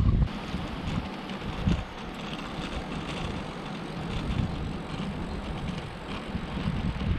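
Wind noise on the microphone and the hiss of bicycle tyres rolling on asphalt during a ride. The heavy low wind rumble drops sharply just after the start and gives way to a lighter, even rushing noise.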